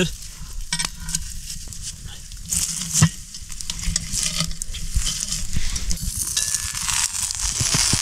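A cast-iron Dutch oven and campfire coals sizzling, with metal clicks and knocks as a lid lifter and tongs work the coal-covered lid; one sharper knock about three seconds in. The sizzling hiss grows louder near the end as the lid comes off the hot pot.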